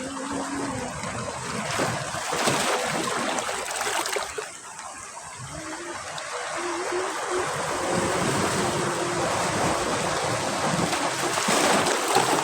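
Sea waves breaking and washing up on a beach, with a steady rush of surf that swells twice: once about two seconds in and again, most loudly, near the end.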